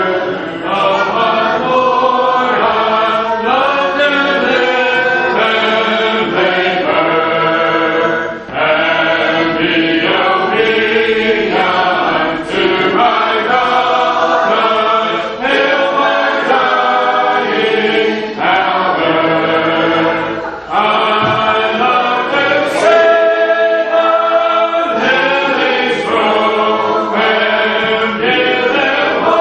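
Church congregation singing a hymn a cappella, many voices together without instruments, line after line with brief breaks between phrases.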